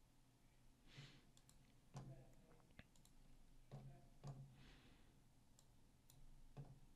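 A handful of faint computer mouse clicks, spaced irregularly, against near silence.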